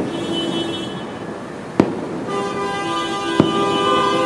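Aerial firework shells bursting: three sharp bangs about a second and a half to two seconds apart. A chord of steady held tones sounds through the second half.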